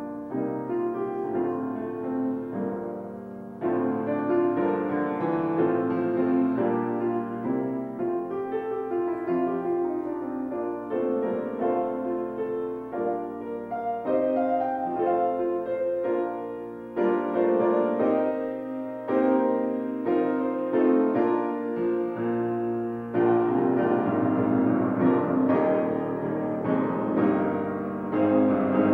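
Keyboard playing slow instrumental music in held chords that change every few seconds, growing fuller and louder a little before the end.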